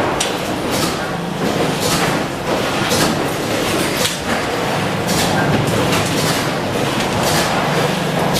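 Workshop machinery running steadily with a low hum, over which wire dish-rack grids rattle and clatter every second or so as they are lifted and laid on a press brake.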